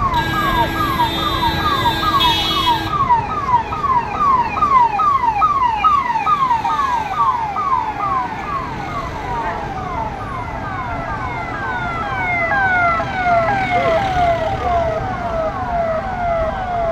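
Police convoy vehicle's electronic siren sounding in fast, repeated falling sweeps, about three a second, with a second siren overlapping later on. A steady horn blares over it for the first few seconds.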